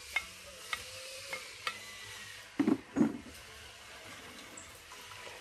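Spoon stirring freshly added tomato, scallion and sweet pepper in a hot pot with a light sizzle, the spoon clicking against the pot several times. Two louder knocks come about two and a half and three seconds in.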